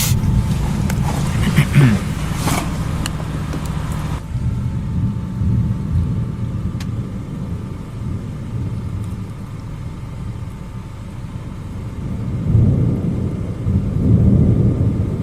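Car engine idling with a steady low hum, with a few sharp clicks in the first few seconds. Near the end a low rumble of thunder swells up twice from the nearby storm.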